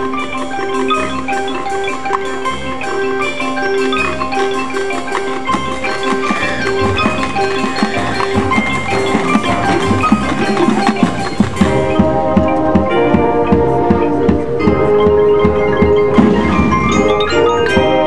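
High school marching band playing, with the front ensemble's mallet percussion (marimba, xylophone, glockenspiel) sounding rapid repeated notes. About twelve seconds in, fuller held chords come in over the mallets and the music grows a little louder.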